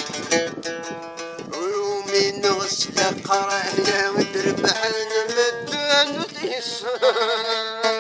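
Oud played solo: a melody of quickly plucked notes, some sliding between pitches.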